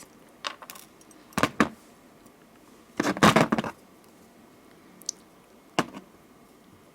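Several sharp clicks and a short clatter of small metal parts, the loudest about three seconds in: cutting pliers trimming a beaded eye pin, with the pin and pliers handled.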